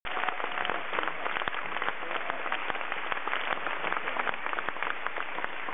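An audience applauding: dense, steady clapping from many hands, with a few louder individual claps standing out close by.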